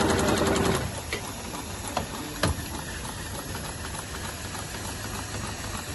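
Automatic heavy-duty belt sewing machine with a Dürkopp Adler head, stitching with a fast even rhythm that stops a little under a second in. After that there is a low steady machine hum with a few sharp mechanical clicks, the loudest about two and a half seconds in.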